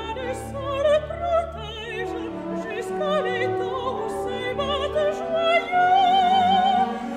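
Classical music laid over the footage: an operatic voice singing with a wide vibrato over orchestral accompaniment.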